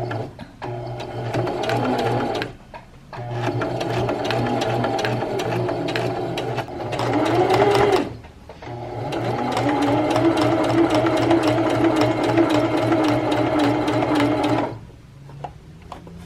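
Sewing machine stitching binding tape onto a wool blanket in three runs with short stops between them. The motor speeds up near the end of the second run.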